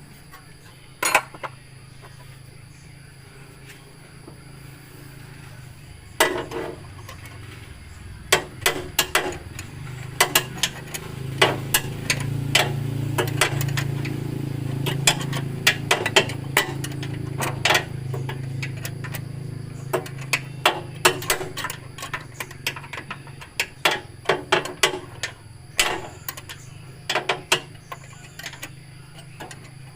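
Irregular metallic clinks and knocks of hand tools on metal, many in quick succession, over a low steady hum that swells for several seconds in the middle.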